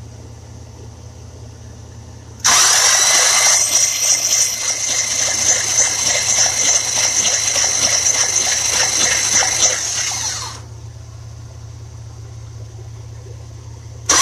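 Starter motor cranking a 1966 Buick Riviera's nailhead V8 with the spark plugs removed, spinning the engine over steadily for about eight seconds from a couple of seconds in, then stopping; a second bout of cranking starts at the very end. With the plugs out it turns freely, though it has never spun properly with them in.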